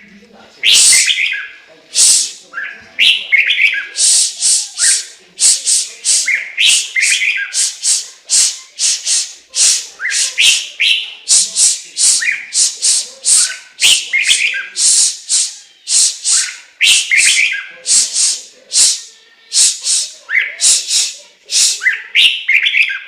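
Chinese hwamei (Garrulax canorus) singing loudly and without pause: quick repeated sharp notes, about two to three a second, mixed with sweeping whistled phrases.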